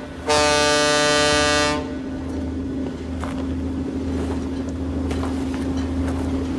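A boat horn blows a loud, steady blast of about a second and a half, right after a previous blast. It then gives way to a steady low mechanical hum.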